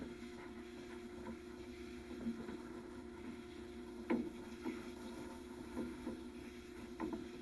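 Dog-wash blower dryer running with a steady hum, with a few brief knocks about four and seven seconds in.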